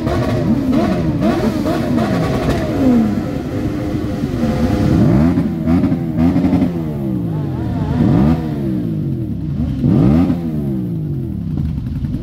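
A group of motorcycles, sport bikes and cruisers, revving their engines over and over, the rises and falls of several bikes overlapping; the sharpest revs come about eight and ten seconds in.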